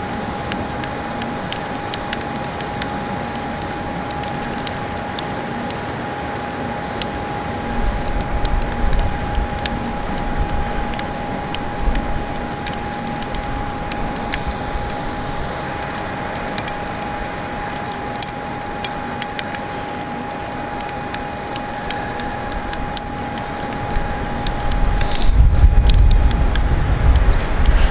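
Electric kontiki winch running with a steady whine as it winds in the longline, with scattered light clicks and metal jingles from the hooks and trace clips being handled. Wind buffets the microphone in low rumbles, loudest near the end.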